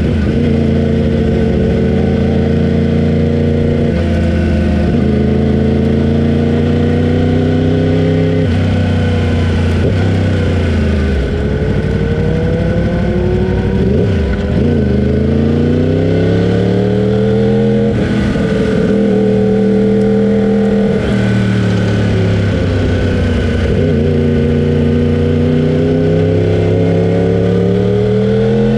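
Race motorcycle engine heard from onboard, revving hard through the gears. Its pitch climbs, steps at shifts, drops several times as the bike slows and downshifts for corners, then climbs again near the end.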